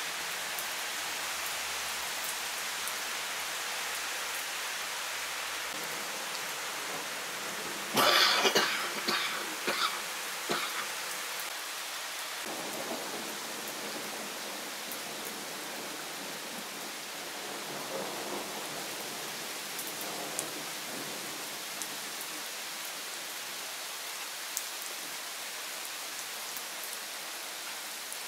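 Steady rain falling and pattering on leaves and paving. About eight seconds in, a quick series of four or five sharp, loud bursts cuts through it and dies away by about ten seconds.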